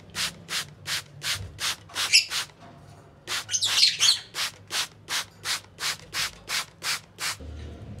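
Hand trigger spray bottle squirting water onto bird eggs in quick strokes, about three a second, with a short pause near the middle. The eggs are being misted to soften the shells as hatching is due. Cage birds chirp briefly twice.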